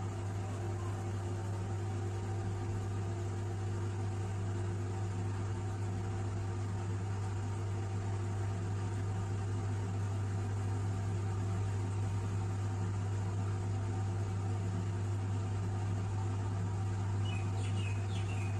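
Washing machine running with a steady low hum and an even whir, unchanging throughout.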